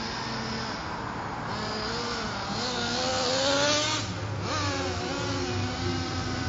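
GV Mammoth nitro RC monster truck's small two-stroke glow-fuel engine running and revving as the truck is driven: the pitch climbs to its loudest about three and a half seconds in, drops sharply just after, rises again briefly and then settles into steadier running.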